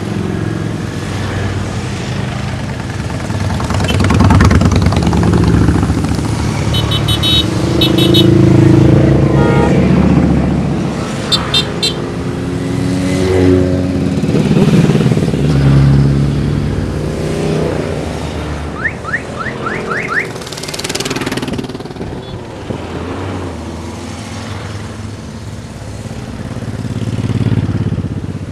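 A procession of motorcycles riding past one after another, their engines swelling and fading as each bike goes by. Short bursts of beeping come twice in the first half.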